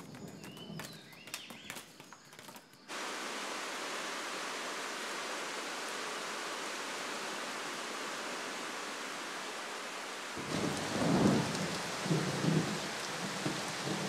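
Heavy tropical rain begins suddenly about three seconds in as a steady hiss. From about ten seconds in, rumbles of thunder roll in beneath it.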